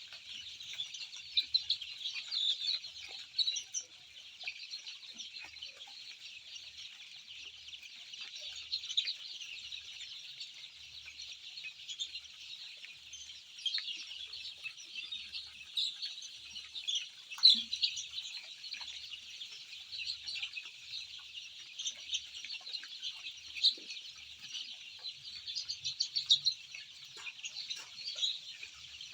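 A large flock of young Chi-breed chicks, about three weeks old, peeping together in a continuous high-pitched chorus, with some calls standing out louder here and there.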